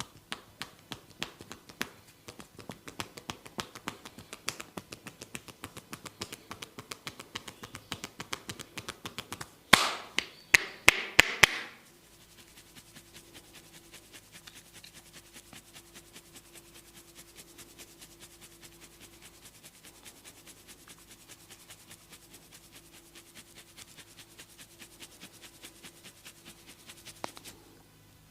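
Hands tapping rhythmically on a person's head during a head massage, about three sharp taps a second. About ten seconds in come about five much louder sharp cracks, then fainter, quicker tapping continues.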